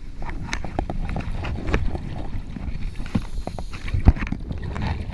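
Muffled underwater sound at a human-powered submarine: rumbling water noise with many irregular clicks and knocks, one sharper knock about four seconds in.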